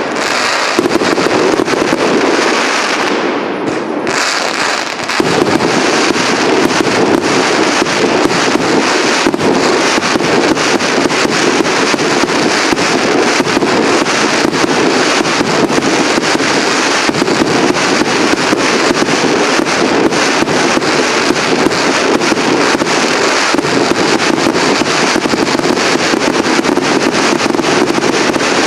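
Fireworks cake (multi-shot battery) firing: a dense, continuous crackle of many small rapid bangs from crackling stars. It thins out briefly about three to five seconds in, then comes back dense and loud.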